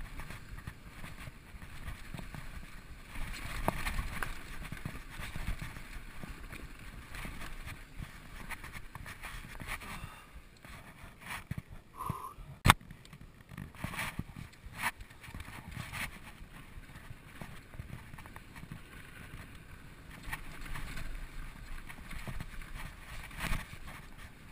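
Specialized SX Trail mountain bike riding fast down rough dirt singletrack: tyres crunching over dirt and rocks and the bike rattling, with one sharp, loud knock about halfway through.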